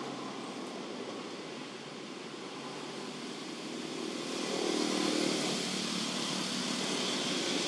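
Steady rumble of motor traffic, growing louder about four seconds in as a vehicle approaches and passes.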